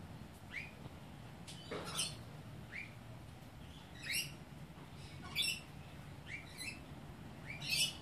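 Rainbow lorikeets calling: a string of short, shrill, screechy chirps, several rising in pitch, repeated every second or so, the loudest about two seconds in, midway, and near the end.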